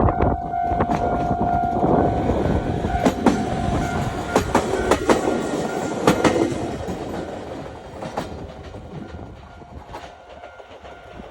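JR Kyushu DENCHA battery-electric train running past a Japanese level crossing, its wheels clicking sharply over rail joints, then fading over the last few seconds as it moves away. The level-crossing alarm bell rings plainly for the first two seconds and carries on faintly under the train.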